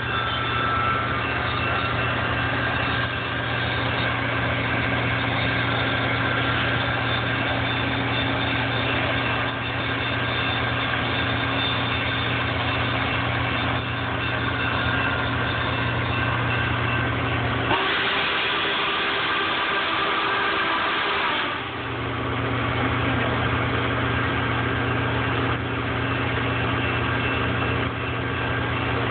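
Steady low hum of a stopped train's idling diesel engine. About eighteen seconds in, a hiss of roughly three and a half seconds takes over, then the hum returns.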